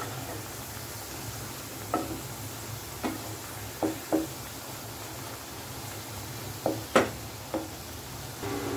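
Baby corn pieces deep-frying in hot oil in a kadhai, a steady sizzle, as they crisp on high flame. A wooden spatula stirs them and knocks against the pan about seven times, the loudest knock about seven seconds in.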